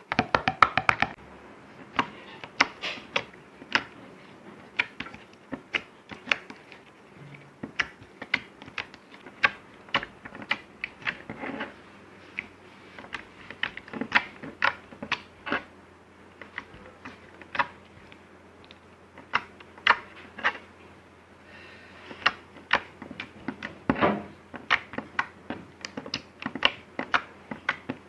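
Slime being squeezed and played with, giving a run of sharp, irregular clicking pops, a few a second.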